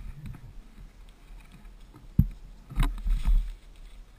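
Dull low thumps and a brief rustle of brush: one thump about two seconds in, then a cluster of thumps with a short rustle about a second later, as a stick carrying a small green snake is handled among ferns.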